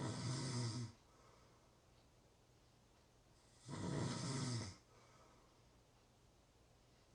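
Person snoring in sleep: two snores about four seconds apart, each lasting about a second.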